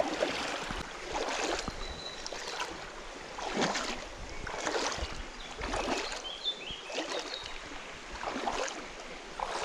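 Bare feet wading through a shallow, stony river, the water splashing and sloshing with each stride about once a second.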